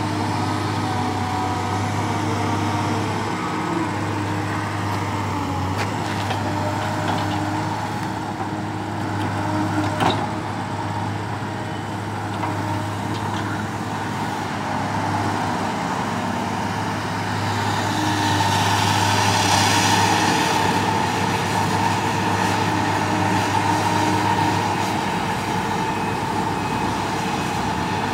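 Diesel engine of a Caterpillar M318C wheeled excavator running steadily as it works, a constant low hum. It grows louder for several seconds about two-thirds of the way through, and there is one sharp knock near the middle.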